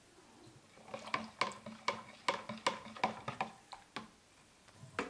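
Irregular light clicks and clinks of glass canning jars and a measuring jug being handled while syrup is poured into the jars, about two to three a second, ending with a louder knock.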